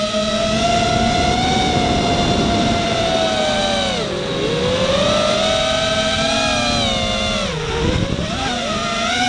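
Walkera F210 FPV racing quadcopter's brushless motors and HQ 5x4.3x3 three-blade props whining in flight, several close pitches together. The pitch drops sharply about four seconds in and again just before eight seconds as the throttle is cut, then climbs back as power returns.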